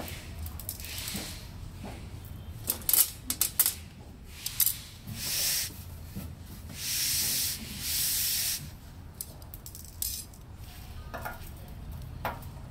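A UPS cabinet being slid and turned on a foam sheet over a tile floor: a few sharp knocks, then three rubbing scrapes of about a second each, and one more knock later.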